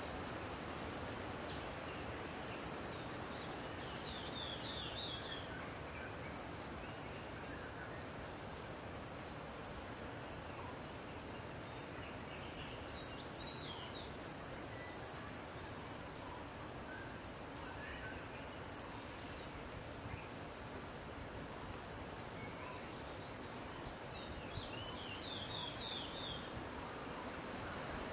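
Steady high-pitched insect chorus, with short clusters of chirps a few seconds in, around the middle and near the end.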